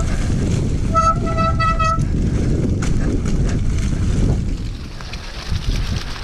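Mountain bike disc brakes squealing in short, stuttering bursts about a second in, a high steady squeal with overtones. Under it runs the steady rumble of tyres on the rough, muddy trail, with a few knocks and rattles from the bike, quieter near the end.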